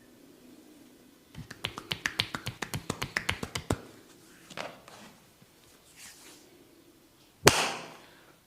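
Barber's hands in a head massage: a quick run of about twenty sharp taps and snaps, roughly eight a second, then a single loud smack near the end.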